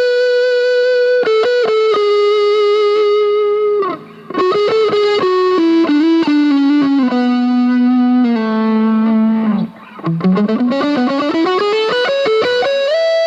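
Fernandes TEJ-70 electric guitar playing a single-note lead line. Held notes step down in pitch, with a brief break about four seconds in and another near ten seconds, then the line climbs quickly to a long held high note near the end.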